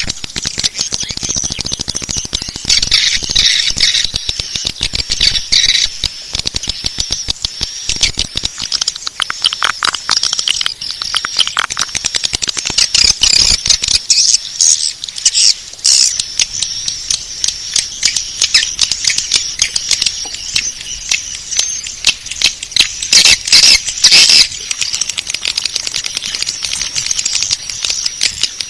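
Swiftlet calls from a swiftlet-house lure recording: dense, rapid, high-pitched twittering chirps that run on without a break, with louder stretches about halfway through and near the end.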